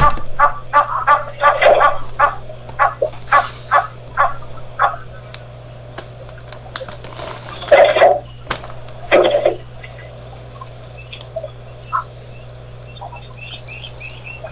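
Egyptian goose calling: a rapid series of short honks that slows and fades over the first few seconds, then two louder honks about eight and nine seconds in. Faint small-bird chirps near the end.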